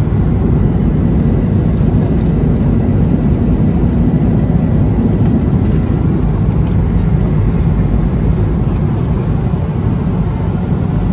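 Steady cabin noise inside an Airbus A330 airliner in flight: a constant low rumble and rush from the airflow and its Rolls-Royce Trent 700 engines.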